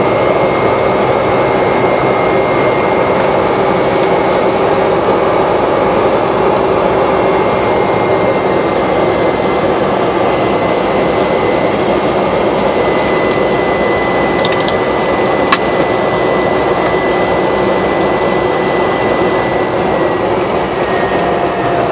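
Cessna Caravan floatplane's Pratt & Whitney PT6A turboprop running at taxi power, heard inside the cockpit as a loud steady drone with a high whine that dips slightly near the end. One sharp click a little past the middle.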